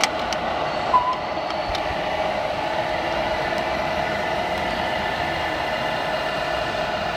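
Radio-controlled model trucks running, a steady mechanical whine, with a brief high beep about a second in.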